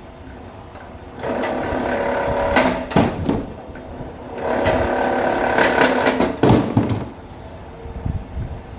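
Electric wire stripping machine working as copper wire is fed through it twice. Each pass lasts two to three seconds and ends in a sharp knock.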